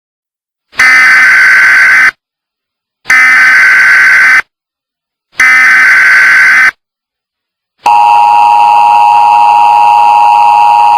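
Emergency Alert System tones: three loud bursts of the SAME digital header data, each about a second long with a second's pause between them. Then the steady two-tone EAS attention signal begins and holds.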